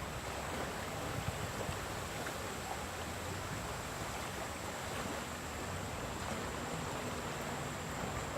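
Fast-flowing river water rushing steadily, with a faint steady high tone above it.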